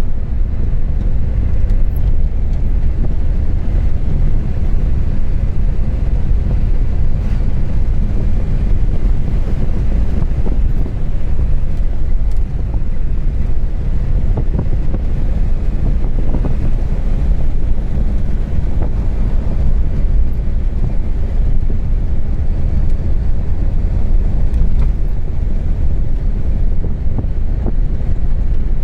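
Steady, loud low rumble of wind buffeting the microphone.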